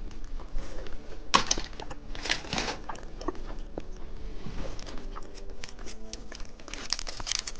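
Plastic snack wrapper crinkling and tearing in irregular bursts as a cheese stick is unwrapped.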